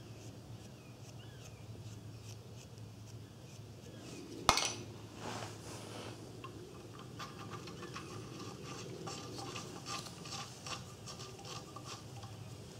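Small metal clinks and scraping as anti-seize-coated steel studs are handled and threaded by hand into a catalytic converter's rusty cast flange, with one sharp metallic clank about four and a half seconds in.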